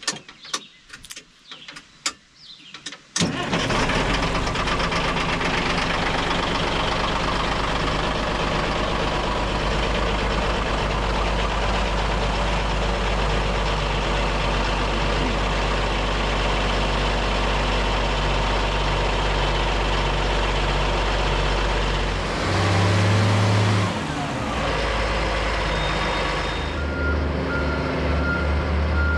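A few clicks, then a heavy machine's engine, which has sat unused for a few days, catches about three seconds in and runs steadily. Near the end a reversing alarm starts beeping at an even pace.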